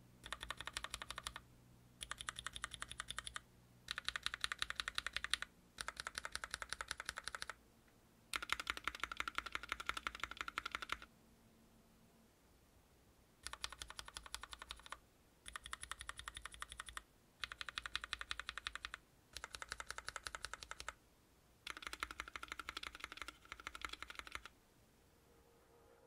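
Typing in short bursts on a Planck Hi-Pro mechanical keyboard with Gateron Cap Yellow linear switches: ten runs of quick keystroke clacks, five on the factory-lubed stock switches, then, after a pause of about two seconds, five on switches lubed with Krytox 205g0 and filmed. The two sets sound almost the same, because the stock switches are already lubricated at the factory where it matters.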